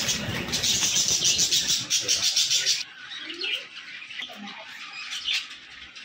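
Budgerigars chattering and chirping, with a dense flurry of wing flapping and chatter for roughly the first three seconds that stops abruptly, then quieter scattered chirps.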